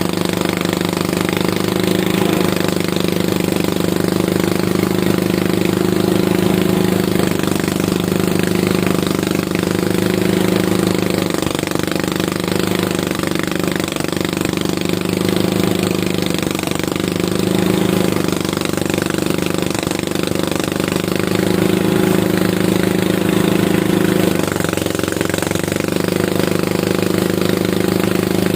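Engine-driven rice harvesting machine running steadily, its engine note shifting slightly every few seconds.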